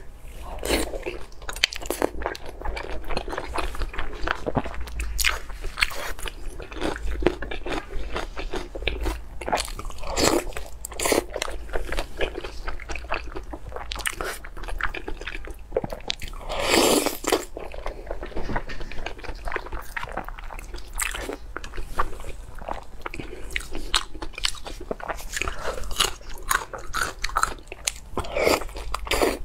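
A person eating close to the microphone: crisp bites and crunching with chewing, many sharp cracks in quick succession, and one longer, louder crunch a little past halfway.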